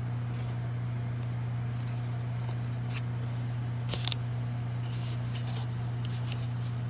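A steady low hum with a few light clicks and taps, the clearest about three and four seconds in, from the soldering work being handled.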